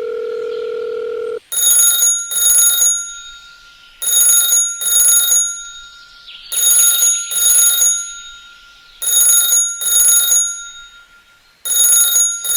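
Telephone ringing in a double-ring cadence: five pairs of bright electronic rings, about one pair every two and a half seconds. A steady hum-like tone comes before it and stops about a second and a half in.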